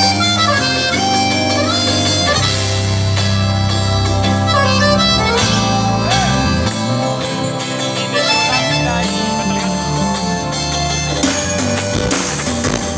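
Live band music: an instrumental passage with a sustained lead melody over a bass line, with no singing.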